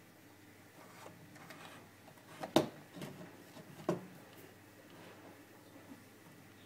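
Clicks and knocks from handling an early-1960s Philips L2X10T transistor radio's switches and telescopic antenna: two sharp clicks about a second apart, the first the louder, among a few lighter ticks, over a faint steady low hum.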